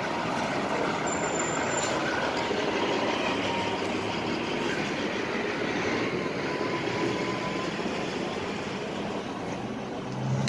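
Steady street traffic noise: vehicle engines and tyres running along the road.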